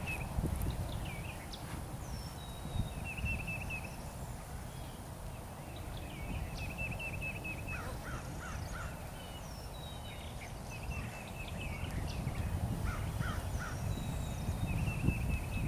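Birds calling: short trilled phrases repeated every few seconds, with scattered chirps and down-slurred whistles, over a low steady rumble.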